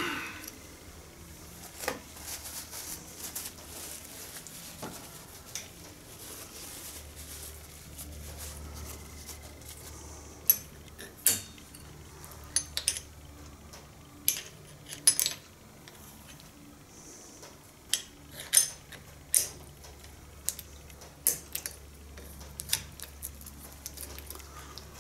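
Metal hedge trimmer blade and gear parts clinking and tapping as they are handled and fitted together by hand. The sharp clicks come a few at a time at first and grow more frequent about halfway through. A faint low hum comes in about a quarter of the way through.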